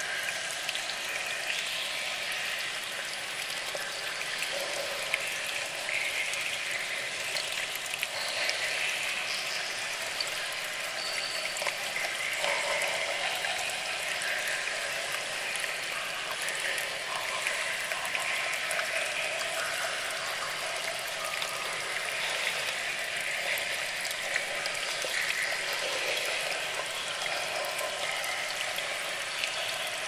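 Water cascading down a small tiered waterfall over rock ledges: a steady splashing rush without a deep rumble.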